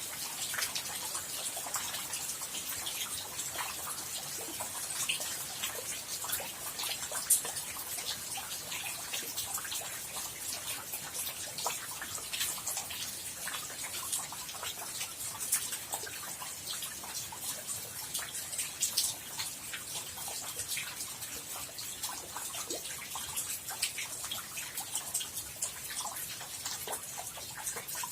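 Rain falling steadily, a dense patter of individual drops.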